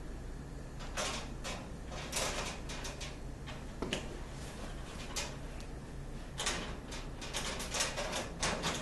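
Metal storage cabinet door and its latch rod being handled: irregular clicks, clanks and short scrapes of metal parts, thickest toward the end.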